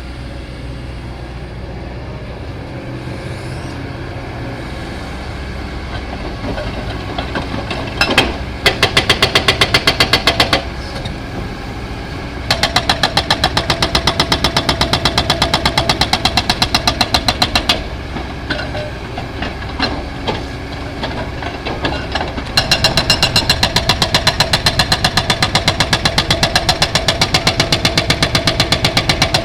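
Excavator running with a steady engine hum, then three long spells of rapid, even hammering that start and stop abruptly, the last beginning a little after two-thirds of the way through.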